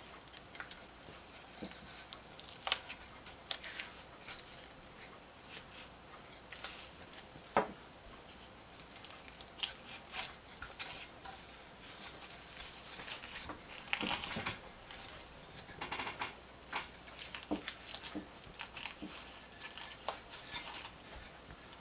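Braided hay twine rustling and scraping as it is wrapped and pulled tight around a forged steel knife handle by hand, with scattered light clicks and taps.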